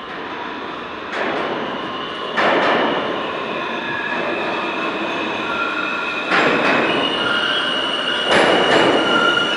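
R160A subway train pulling into an underground station, growing louder as it nears. Loud wheel clacks come in spaced pairs, and a high steady squeal joins in from about halfway.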